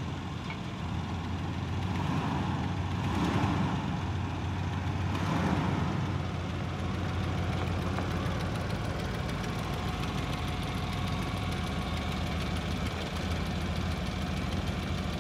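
Older red Dodge Durango SUV's engine idling steadily, with a couple of slight swells in the first half.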